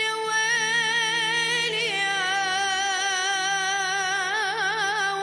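A child singing an Arabic mawwal solo, holding long high notes: one steady note, then, about two seconds in, a step up to a higher note with a wide, growing vibrato. A steady low drone sounds underneath.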